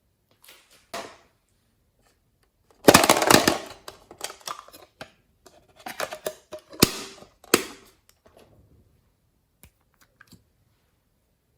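Slime being squished and worked by hand: bursts of wet crackling and popping about three seconds in and again from about six seconds, with a few sharp clicks.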